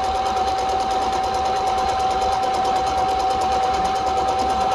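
Singer electronic sewing machine sewing an automatic buttonhole: a steady motor whine over a fast, even clatter of needle strokes. The machine moves the fabric back and forth by itself.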